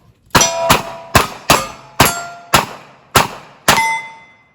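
Eight revolver shots fired at steel plates, about half a second apart. Most shots are followed by a short metallic ring as a plate is hit, and the last ring lasts longest as the final plate is struck.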